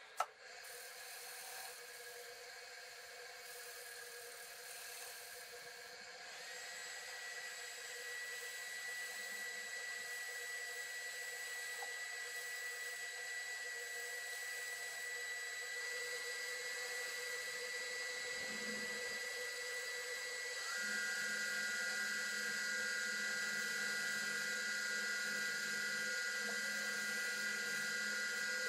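Grizzly 3 hp wood lathe running with a steady electric whine. It grows louder in steps as new tones join, about six seconds in and again about twenty-one seconds in.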